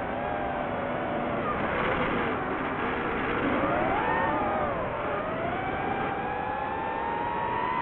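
DJI FPV drone's motors and propellers whining, the pitch wandering up and down with the throttle, then climbing steadily over the last few seconds, over a steady rushing noise.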